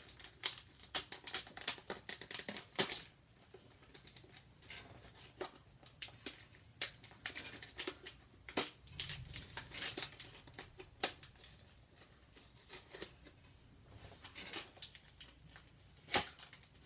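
Clear plastic blister packaging of a toy car being pried and torn open by hand: irregular crinkling and crackling with sharp snaps of the plastic.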